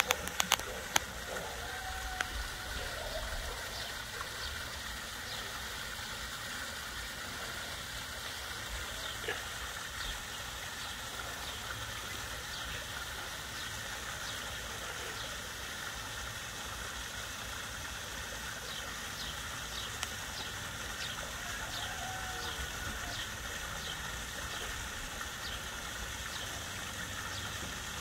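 Outdoor background: a steady low rumble with faint, short high chirps repeating throughout, a few clicks at the start and a couple of brief calls around two seconds in and past twenty seconds.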